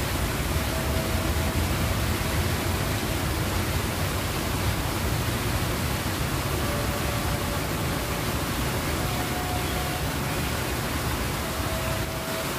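Steady rushing noise, heaviest in the low end, with a few faint short thin tones now and then.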